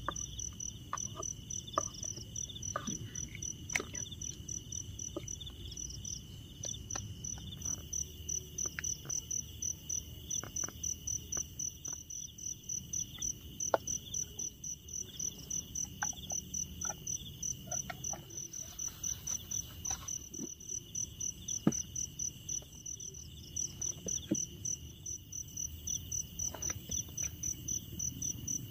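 Crickets chirping: a high, pulsing trill repeating about two to three times a second over a second, steady high insect tone, with scattered faint clicks and knocks.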